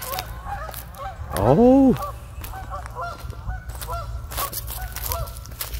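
A flock of waterfowl calling in flight: many short calls overlapping, a few each second.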